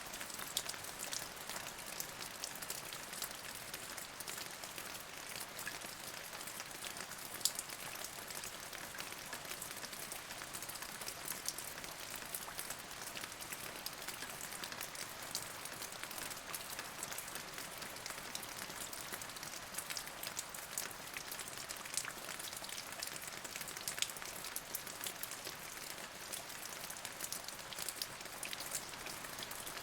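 Steady rain: a constant hiss, mostly high-pitched, with many sharp individual drop hits scattered through it.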